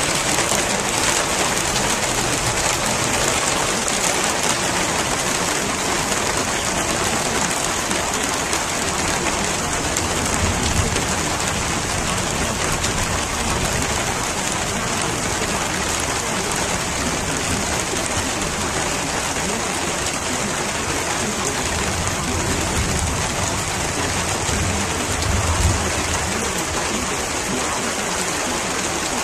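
Steady heavy rain, with low rumbles of thunder swelling up about ten seconds in and again in the last third.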